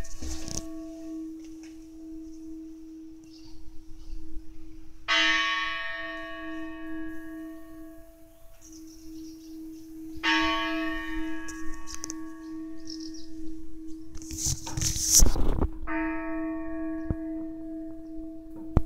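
A large church bell tolling slowly, struck three times about five seconds apart. Each stroke rings out with many overtones, and a deep hum lingers between strokes. A brief loud rustling noise comes about three-quarters of the way through.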